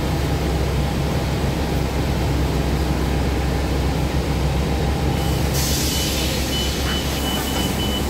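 Cabin sound of a 2012 Gillig Advantage low-floor bus at a stop, its engine running steadily. About five seconds in there is a loud hiss of released air from the bus's air system, followed by a high warning beep repeating about twice a second.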